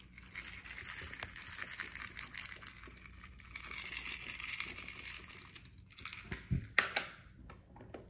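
Light crackling rustle as fingers rub and scatter tiny polymer-clay (fimo) cereal sprinkles over clear slime, with a couple of sharp taps near the end.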